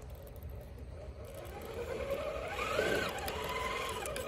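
Electric motor and gears of a Vanquish Ultra 1.9 RC rock crawler whining under load as it climbs a boulder, the pitch rising and falling with the throttle and getting louder from about a second and a half in.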